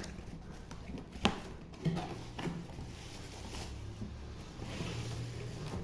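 A small portable speaker being taken out of its cardboard box: a few knocks and taps of the box and packaging in the first couple of seconds, then rustling of the packing material.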